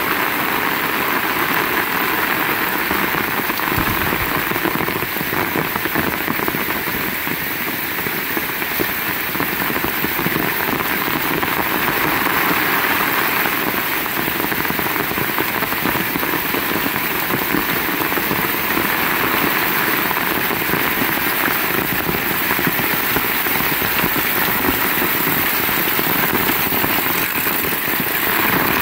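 Heavy rain falling steadily, a continuous even hiss of downpour.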